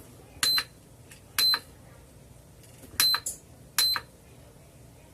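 iMax B6 balance charger's buzzer giving four short, high beeps, each with a button click, as its buttons are pressed through the menu; they come at irregular intervals of roughly a second.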